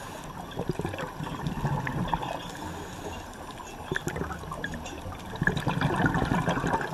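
Underwater water noise: bubbling and gurgling with small crackles, swelling louder about five and a half seconds in.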